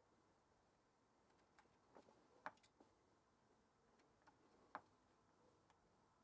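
Near silence broken by a few faint, sparse ticks as a soldering iron tip and solder wire touch the pins of an IC socket being tacked onto a circuit board.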